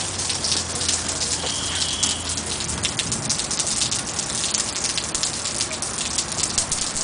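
Heavy rain pouring down, a steady dense patter of drops, with a faint low hum that stops about three seconds in.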